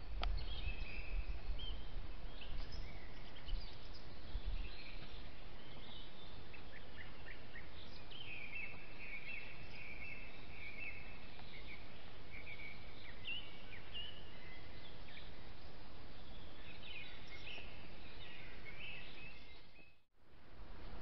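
Small birds singing and chirping in woodland, with a longer trill about eight seconds in, over a low steady rumble.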